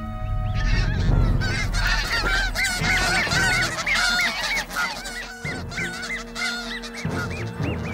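Snow geese honking over and over, many short harsh calls overlapping, loudest in the first few seconds: an adult defending its goslings against an arctic fox.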